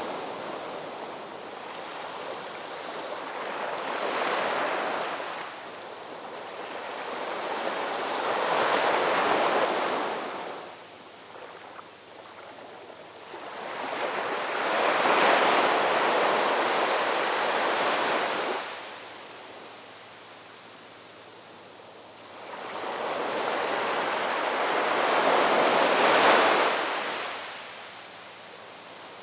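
Sea waves breaking on a shore: four surges of surf swell up and wash away, each a few seconds long, with quieter lulls between.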